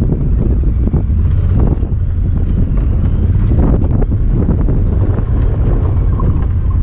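Honda Talon 1000R side-by-side on the move, its engine and tyre rumble heavily overlaid by wind buffeting the microphone, with scattered knocks and rattles.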